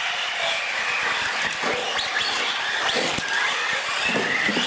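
A pack of small radio-controlled UTV trucks racing: their electric motors whine, rising and falling in pitch as they speed up and slow, over a steady hiss of tyres, with a few short knocks.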